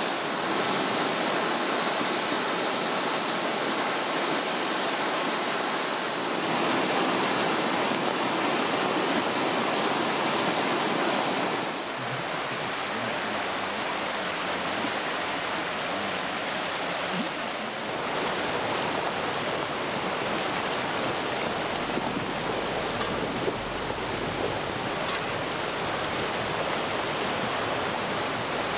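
A mountain river at near flood stage rushing through whitewater rapids, a steady loud rush of water. About twelve seconds in it changes to shallower floodwater running over a gravel road, a slightly softer rushing.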